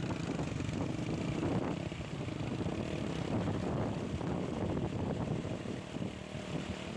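Floodwater rushing over a submerged road, with wind buffeting the phone's microphone and a steady engine drone underneath.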